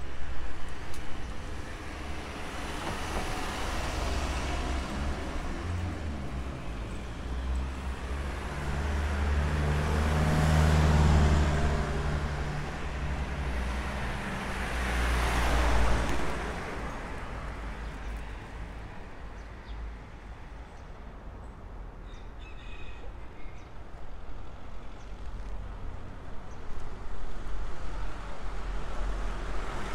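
Street traffic passing: a vehicle with a low engine hum goes by about ten seconds in, then a car passes about fifteen seconds in, its tyre noise swelling and fading.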